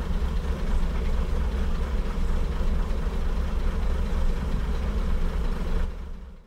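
Diesel multiple unit railcar's engine idling: a steady low rumble with a hum, fading out near the end.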